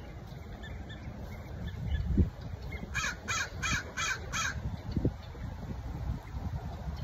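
A crow cawing five times in quick succession, about three caws a second, a few seconds in, over a low wind rumble on the microphone.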